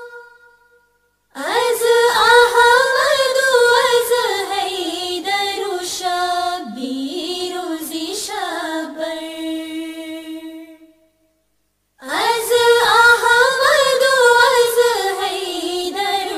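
A single voice singing a Farsi qasida unaccompanied, in long ornamented phrases with wavering pitch. One phrase dies away at the start, a new phrase begins just over a second in and breaks off before eleven seconds, and another begins about twelve seconds in.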